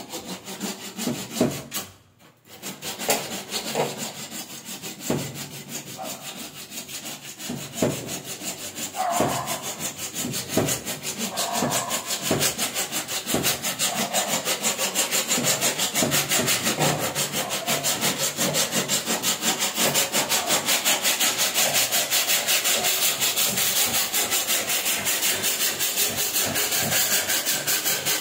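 Hand saw cutting a PVC drain pipe. The strokes are uneven and spaced out at first, then settle into fast, even back-and-forth strokes, about four or five a second.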